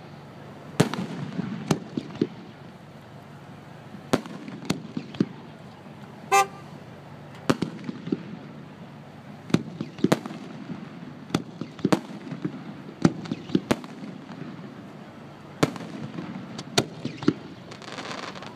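Aerial fireworks shells bursting overhead: a string of sharp bangs at irregular intervals, roughly one every second. A short horn toot sounds about six seconds in. Near the end a crackling hiss comes from glittering stars.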